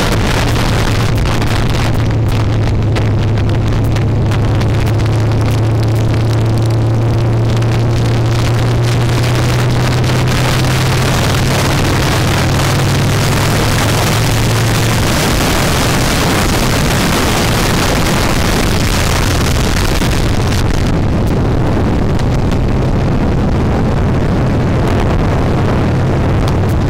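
Harley-Davidson V-twin motorcycle engine running steadily at cruising speed, heard from on the bike with wind rushing over the microphone. The engine note shifts about halfway through.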